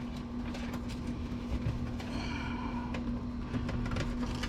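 Faint clicks, knocks and rattles of metal and plastic parts being handled while an old desktop PC is taken apart, over a steady low hum.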